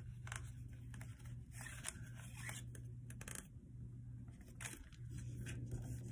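Notebook paper being folded and creased by hand: faint, irregular rustles and crinkles over a steady low hum.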